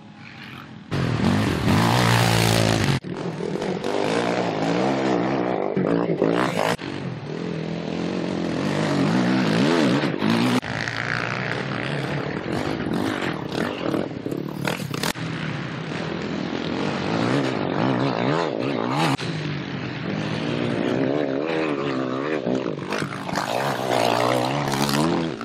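Racing quad bikes' engines revving hard as they accelerate along a dirt track, the pitch rising and falling with throttle and gear changes. The sound jumps abruptly every few seconds.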